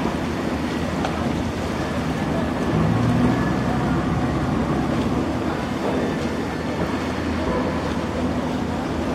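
A harbour ferry's diesel engine running steadily alongside the pier, a constant low hum under a wash of noise, with a brief swell in the rumble about three seconds in.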